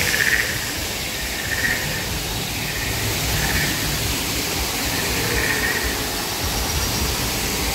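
Steady rushing noise of small waterfalls splashing over rockwork into a pool, with a low, uneven rumble underneath.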